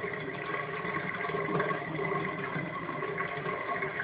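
Bathtub water running down the open drain: a steady rush of water with a constant hum in it.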